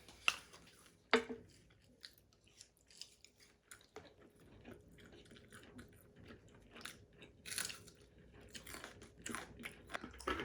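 A person chewing and biting into crunchy food close to the microphone, with scattered short crisp crunches.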